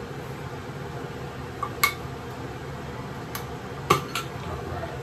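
Metal clicks and clinks as the lid of a shaving powder tin is pried at: about five short sharp clicks, the two loudest about two and four seconds in, one with a brief ring.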